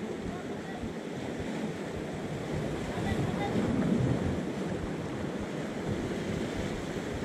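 Sea surf washing and breaking against rocky boulders, swelling a little around the middle.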